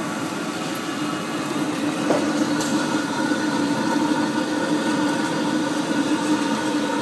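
Butyl rubber sheet extrusion line with rollers running: a steady, unbroken machine hum with a steady low tone.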